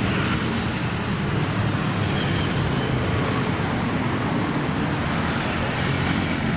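Steady hiss of a compressed-air paint spray gun spraying, with the low hum of the air compressor's motor underneath.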